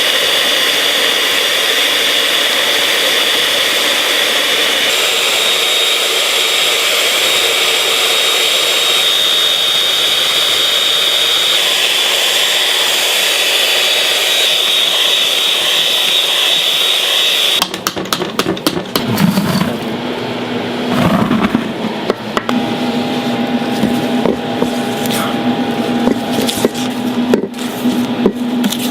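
Steady, loud whirring of a motorised kitchen machine with a high whine in it. It cuts off abruptly about two-thirds of the way through, giving way to irregular clicks and knocks of kitchen work over a low steady hum.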